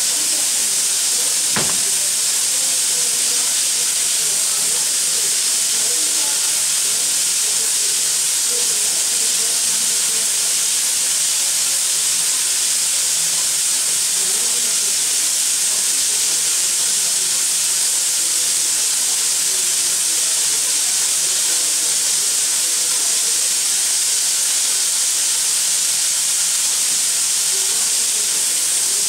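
L-class steam locomotive venting steam in a steady hiss, with a single sharp click about a second and a half in.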